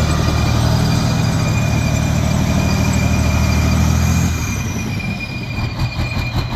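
M1 Abrams tank running close by: a steady high whine from its gas-turbine engine over a heavy low rumble. The low rumble falls away about four seconds in.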